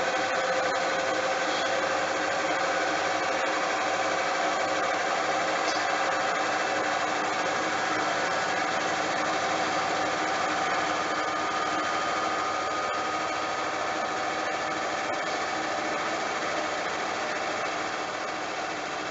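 Bosch washing machine running with a load of towels: a steady mechanical whoosh with a motor whine held on a few steady tones that drift slightly in pitch.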